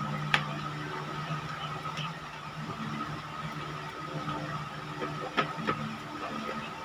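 A steady low mechanical hum, like an engine running nearby, under a cloth rubbing across a whiteboard, with a sharp knock near the start and another about five and a half seconds in.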